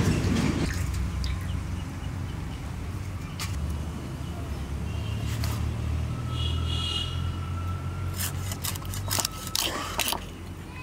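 Scales being scraped off a hilsa fish against the iron blade of an upright boti cutter, in short rasping strokes, most of them near the end. A low, steady rumble runs underneath.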